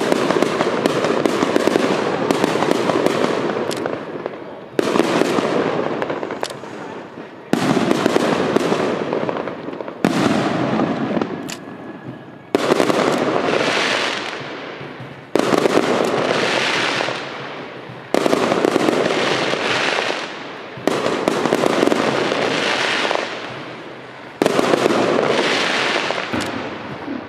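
Aerial firework shells bursting one after another, roughly every two to three seconds. Each is a sudden bang that trails off over a couple of seconds. The first few seconds hold a dense run of sharp cracks.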